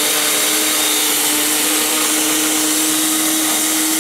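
Countertop blender motor running steadily at full speed, puréeing boiled tomatoes, garlic and water into a smooth liquid. The motor hum holds one even pitch throughout.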